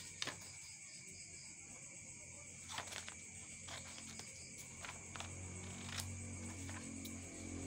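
Scissors snipping through folded construction paper: several separate short, sharp cuts. Steady high tones run underneath, and a low road-traffic rumble builds near the end.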